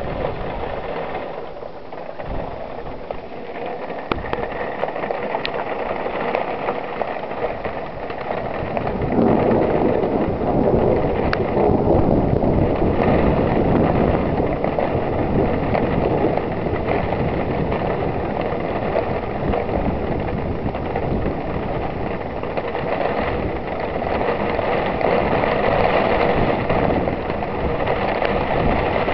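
Heavy thunderstorm rain pouring down in a steady hiss, growing clearly louder about nine seconds in as the downpour strengthens.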